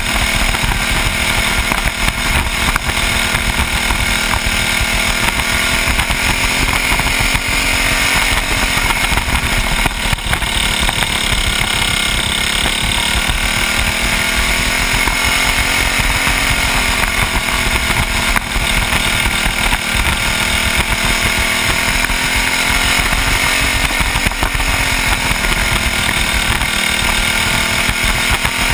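Youth racing kart's small engine running hard at high revs, heard close from on board the kart. Its pitch dips briefly and climbs back every several seconds as the throttle eases and opens again through the turns.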